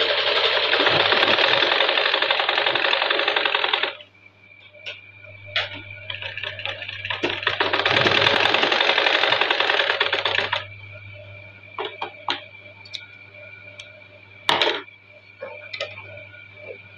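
Domestic sewing machine stitching along a fabric edge in two runs, the first stopping about four seconds in and the second starting about halfway through and lasting a couple of seconds; between and after the runs come scattered light clicks as the fabric is handled and repositioned.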